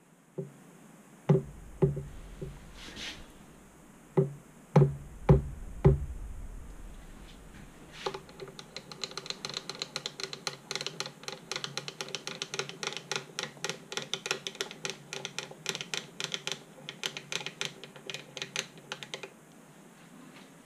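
A few sharp metal knocks in the first six seconds as the vice is tapped and tightened on the Proxxon mini mill's table. From about eight seconds comes a fast, even ticking, about five a second, for some ten seconds while the table is cranked to run the dial indicator along the vice.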